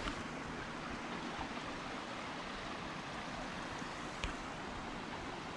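Steady rush of water falling from a waterfall, with a single short click about four seconds in.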